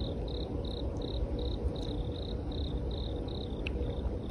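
A cricket chirping in a steady rhythm, about three high chirps a second, over a low steady rumble of background noise. The chirps grow fainter near the end.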